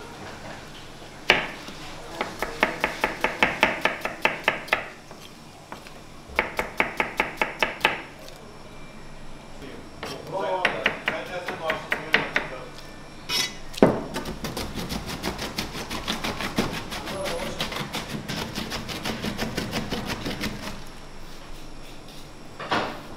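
Knife slicing red onions against a plastic cutting board: quick runs of about five cuts a second, broken by short pauses.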